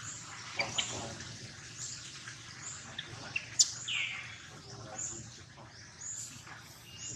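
High-pitched animal chirps scattered through, with one short falling squeal about four seconds in and a sharp click just before it.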